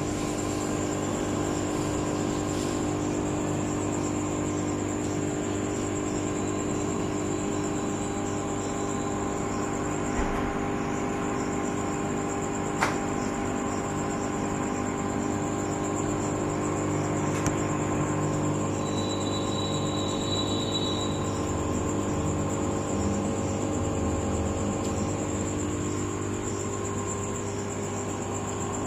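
Aquarium air pump humming steadily, with a steady high whine over the hum, and a couple of faint clicks partway through.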